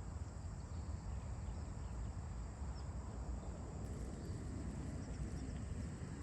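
Outdoor ambience: a steady high-pitched insect drone over a low rumble, with a few faint bird chirps. No sneeze or other sudden sound stands out.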